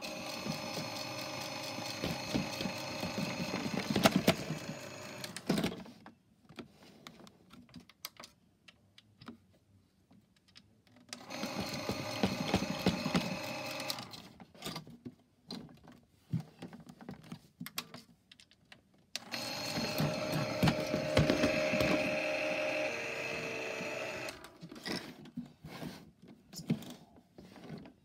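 Miele W1 washing machine's drum motor running in three short spells, a steady whine of several tones with a light rattle, each one stopping after a few seconds. Between the spells come scattered clicks from the control-panel buttons being pressed.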